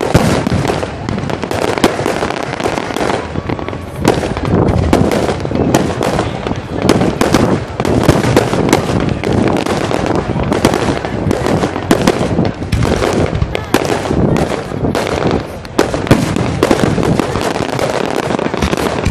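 Fireworks display: a dense, continuous run of bangs and crackles from aerial shells bursting, one after another without a break.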